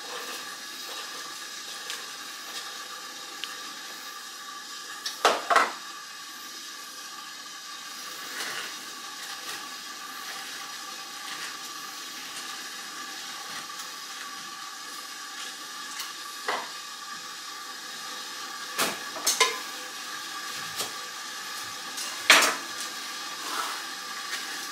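Lemon halves being pressed and twisted by hand on a plastic citrus reamer. Scattered short knocks and clatters of the juicer and lemons against the counter, about half a dozen, over a faint steady hum.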